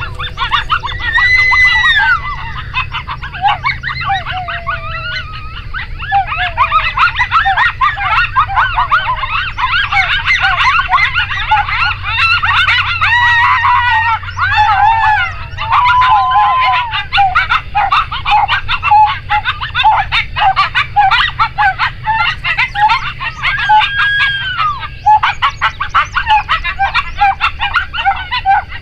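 A pack of coyotes howling and yipping together: a dense chorus of quick high yips mixed with a few longer wavering howls that rise and fall.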